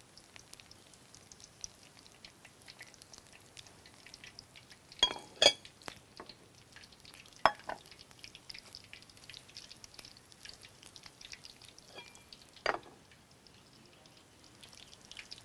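Spring rolls deep-frying in oil on lowered heat, a faint steady crackling sizzle. A few sharp clacks of a utensil against the pan come through it, the loudest about five seconds in and the last near the end.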